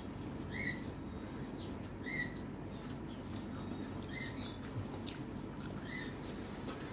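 Fingers mixing rice on a steel plate and chewing, with soft wet clicks. Short high chirps repeat about every two seconds over a steady low background noise.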